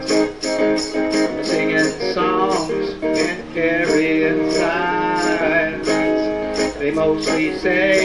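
A man singing to his own acoustic guitar, strumming in a steady rhythm, the sung lines rising and falling over the strums.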